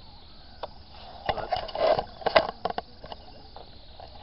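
Hooked catfish thrashing at the surface in the margin: a cluster of sharp splashes and slaps, starting about a second in and lasting about a second and a half.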